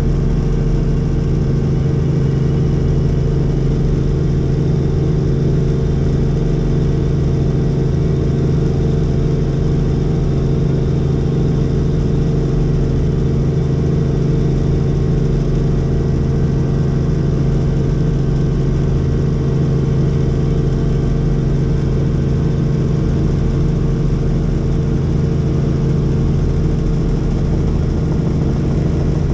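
Helicopter in steady flight, heard from inside the cabin: a loud, even drone that holds without change.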